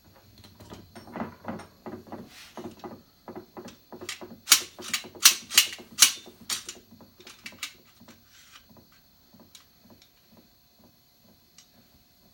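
A quick series of knocks and taps, about three to four a second, with a run of sharper, louder clicks in the middle that then tail off into sparse ticks.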